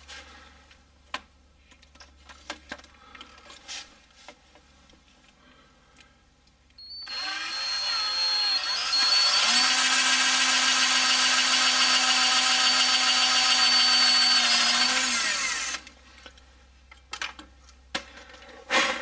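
Cordless drill run in reverse, turning a left-handed drill bit into a broken timing cover bolt: it winds up over about two seconds, runs at a steady high whine for about six seconds, then stops. Light clicks and knocks of handling before and after.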